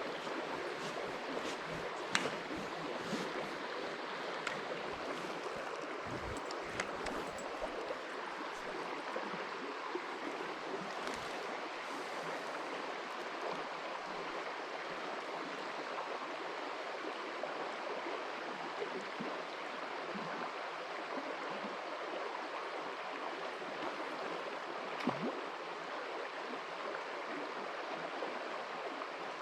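River water flowing and rippling steadily, with a few sharp clicks, the loudest about two seconds in and another near the end.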